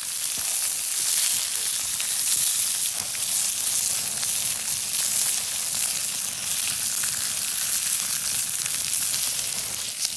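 Pork pieces sizzling on a flat stone heated over a wood fire: a steady, loud hiss with many small pops and spits.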